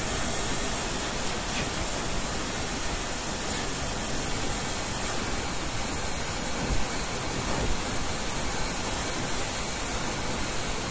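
Steady hiss of static noise spread evenly from low to high pitch, with a couple of faint soft knocks in the middle.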